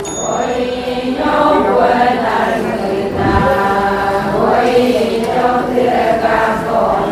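Several voices chanting together in long held notes, a group vocal chant rather than speech.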